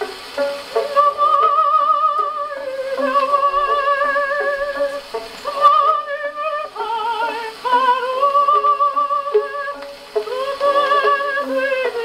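HMV 102 wind-up portable gramophone playing a 78 rpm record through its acoustic soundbox: a high melody line with a wide vibrato over a lower accompaniment, thin-sounding with no bass.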